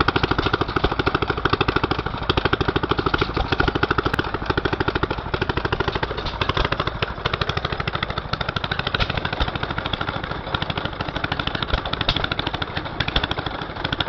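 Antique hopper-cooled stationary gas engines running. Their exhaust gives a rapid, even popping with mechanical clatter.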